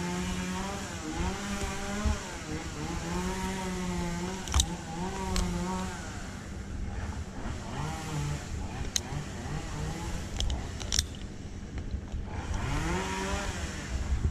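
Chainsaw engine running at high revs, its pitch wavering as if under cutting load for the first several seconds, then easing off and revving up again near the end. A few sharp clicks are heard in the middle.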